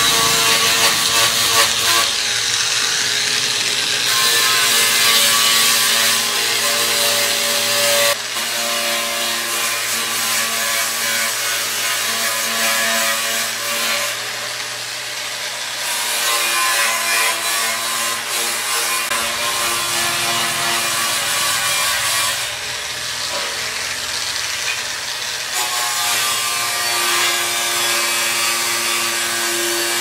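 Electric angle grinder running with its disc against rusty sheet-steel microwave casing: a steady motor whine over harsh abrasive grinding noise, shifting in pitch and loudness every few seconds.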